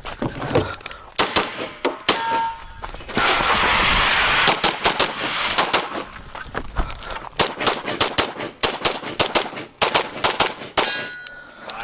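Rapid strings of pistol shots from an open-division Limcat 9mm Major race pistol firing a USPSA course of fire. The shots come in fast runs with short breaks between them.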